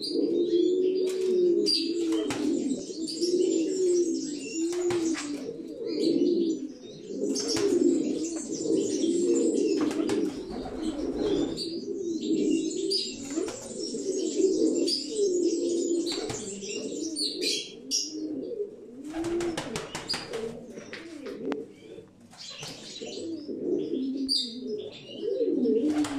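Male pica antigua sporting pigeons cooing without pause, low rolling coos that rise and fall and overlap. Scattered sharp clicks and higher chirps sound over the cooing.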